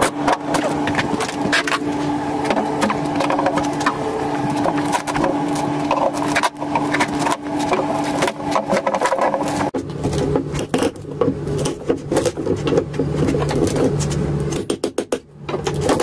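DeWalt reciprocating saw running and cutting at the wooden plate on top of a concrete block wall. Its pitch drops and turns rougher about ten seconds in, and it cuts on and off in quick stutters near the end.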